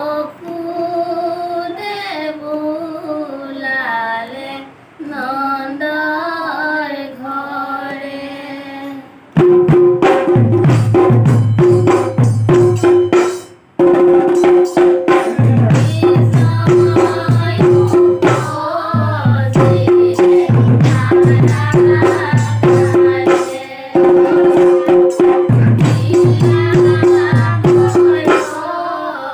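Children and women singing a devotional naam together. About nine seconds in, a dhol drum beaten with a stick and small hand cymbals come in loudly, keeping a steady rhythm under the singing.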